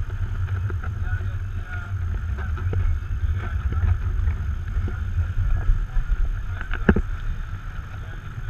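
Wind buffeting the microphone and water rushing along the hulls of a catamaran under sail, a steady low rumble with a hiss of water over it. A single sharp knock about seven seconds in.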